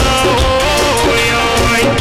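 Music from a Rajasthani chetawani bhajan: a held melody that glides between notes over a steady beat.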